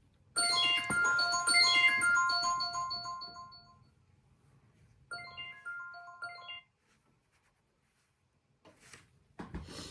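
A short electronic melody of bright, chime-like notes that fades out, then a second, shorter phrase of notes.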